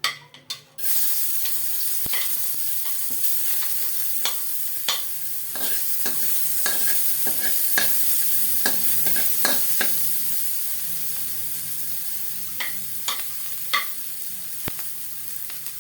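Chopped garlic sizzling in hot oil in a pan, starting about a second in. A utensil clicks and scrapes against the pan now and then as the garlic is stirred.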